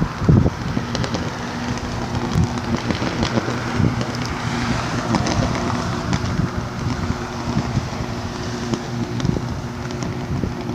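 Wind buffeting the microphone over a steady low hum, with scattered crackles.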